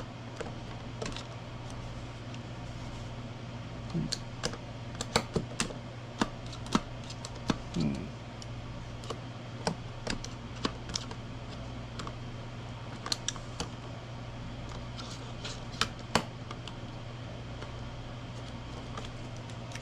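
Scattered light clicks and taps, irregular, from plastic parts of an electric screwdriver kit being handled and pressed, over a steady low hum.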